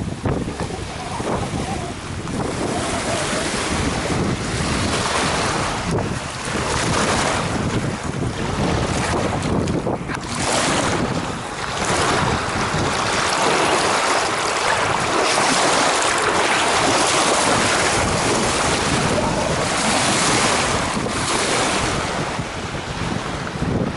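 Strong gusting wind buffeting the microphone, swelling and easing every few seconds, with waves on a wind-whipped lake washing ashore.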